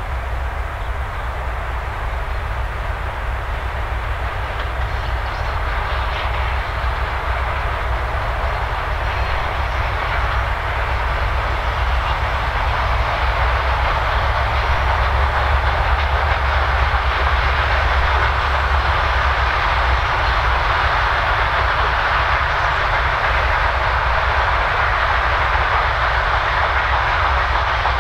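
Soviet-built 2M62U diesel locomotive hauling a freight train of hopper wagons, its two-stroke diesel engine running with a strong low drone over the rolling noise of the train. It grows louder over the first half as the locomotive draws near, then holds steady as it passes.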